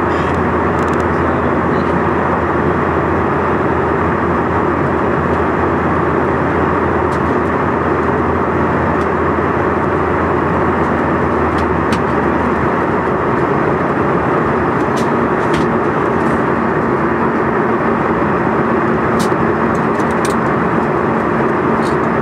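Steady cabin drone of a Canadair CRJ700 regional jet: its rear-mounted General Electric CF34 engines hum under the rush of air past the fuselage. About halfway through, a low hum fades and a slightly higher steady tone takes over.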